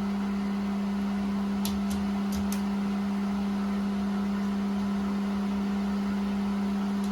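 A steady low hum holding one pitch, with a few faint light clicks about two seconds in.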